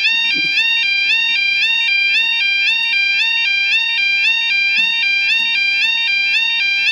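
UK level crossing warning alarm sounding its two-tone yodel, switching evenly between a lower and a higher pitch about twice a second.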